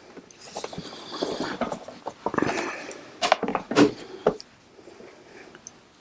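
A 2010 MacBook Pro's aluminium bottom case being set back in place and the laptop handled and turned over on a table: rubbing and scraping, with a few sharp knocks near the middle.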